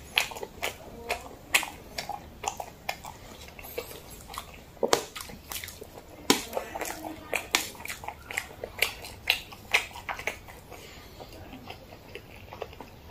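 Close-miked mouth sounds of eating black bean noodles: wet chewing and lip smacks, irregular sharp smacks a couple of times a second.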